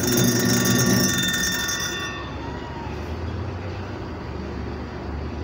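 National washing machine's wash motor starting with a hum and whine, running for about two seconds, then dropping to a quieter hum. This is the forward-and-reverse agitation cycle, run on a replacement capacitor, with the timer still switching direction.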